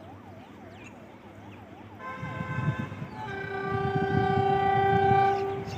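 A warbling siren rises and falls about twice a second. Then an Indian Railways WDG3A diesel locomotive sounds its air horn: a short toot about two seconds in, then a long steady blast of about two and a half seconds, the loudest sound, with a low rumble beneath.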